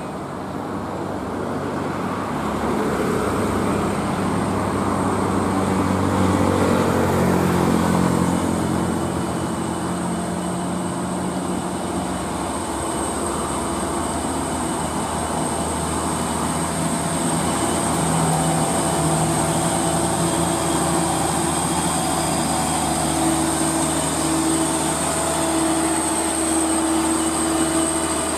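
Diesel engine of a loaded Mitsubishi Fuso Canter dump truck pulling hard up a slope. Its pitch rises over the first several seconds, falls back about eight seconds in, then holds steady, with road-traffic noise around it.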